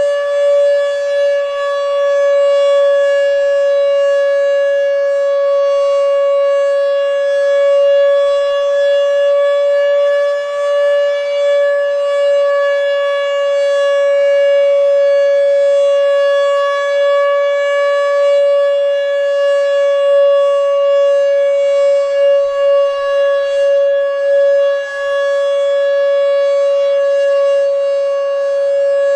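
Fedelcode dual-rotor Mach 5 tornado siren sounding a full alert: one loud, steady held tone with a fainter higher tone above it, its level wavering slightly. It is running a bit sluggish, which the uploader thinks makes it less loud than it could be.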